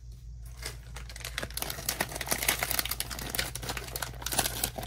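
Foil blind bag crinkling and crackling as hands pull it open, a dense rapid crackle that starts about a second in.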